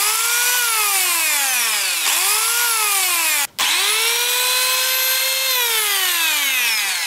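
Worx Versacut WX420 mini circular saw's brushed, geared motor started three times with no load. Each time the whine jumps up to speed within about half a second, with no soft start, then falls away as the blade spins down. The first two runs are brief; the third, after a short break about three and a half seconds in, holds speed for about two seconds before winding down near the end.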